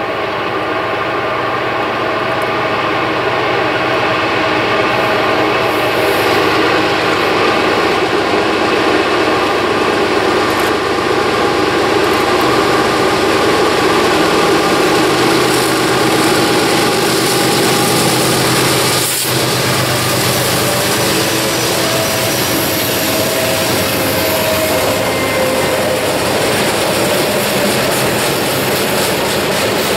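Freight train led by three GE diesel-electric locomotives, an ES44DC and two Dash 9-44CWs, running past loud and steady with the engines working. Past the halfway point the locomotives give way to boxcars and flatcars rolling by with wheel-on-rail noise.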